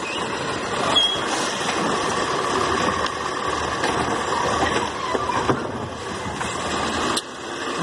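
Automated side-loader garbage truck running, with its diesel engine and hydraulic lift arm working as it grabs a wheeled trash cart, raises it over the hopper to empty it, and lowers it back down. The steady machine noise drops off suddenly near the end.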